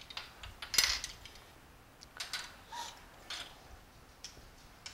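Light clicks and clinks of measuring spoons knocking against small dishes and containers as dry ingredients are measured out, a handful of separate taps with the sharpest about a second in.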